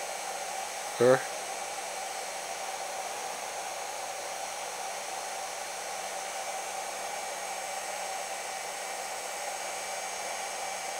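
CNC spindle motor running unloaded at full speed on a bench test of its new speed controller: a steady whir with a constant mid-pitched whine that does not change.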